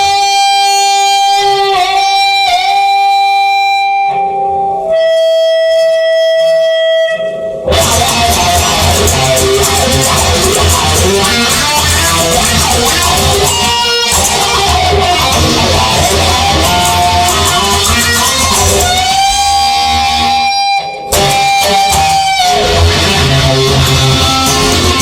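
Electric guitar lead playing long sustained notes with string bends, first over sparse backing; about eight seconds in the full band with bass comes in underneath, and later the guitar holds another long bent note.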